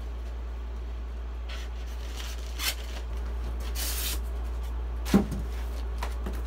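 Unpacking sounds from a styrofoam shipping box: plastic wrapping rustling and foam packing pieces rubbing and being lifted out, with a sharp knock about five seconds in. A steady low hum sits underneath.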